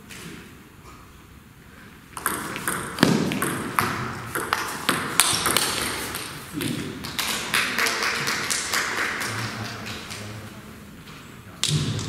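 Table tennis rally: the ball clicks off the rackets and bounces on the table in quick succession from about two seconds in until about ten seconds in, with voices in the hall and a brief loud sound near the end.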